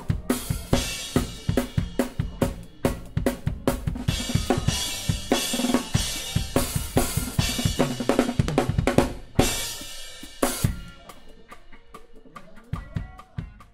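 Drum kit played live with a band: a fast, dense beat of kick drum, snare and cymbals. Cymbal crashes come about nine and ten seconds in, and after them the playing drops to quieter, sparser hits.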